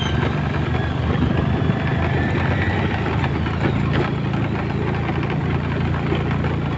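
Motorbike engine running steadily under load as it climbs a steep hill.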